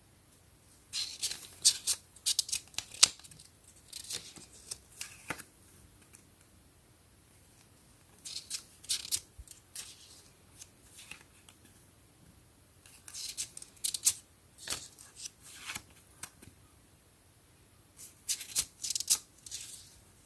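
Paper pages of a small storybook being handled and turned, crisp rustles and flicks in four bursts a few seconds apart.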